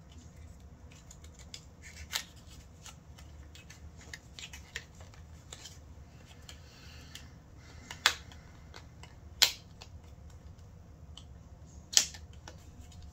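Small cardboard product box and its packing being handled and worked open by hand: light crinkling and scraping with scattered clicks, a few of them sharp and loud in the second half.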